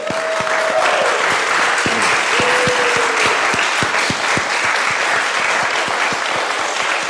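A congregation applauding loudly and steadily, welcoming a newly installed pastor.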